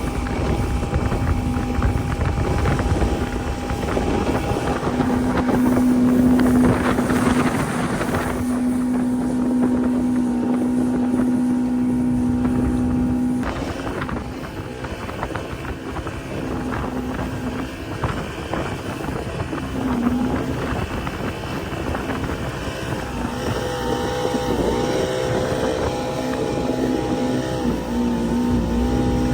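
Outboard motor (a 135) pushing a Powercat catamaran hull at speed, with wind on the microphone. A steady engine tone drops away about halfway through. Near the end the pitch wavers up and down.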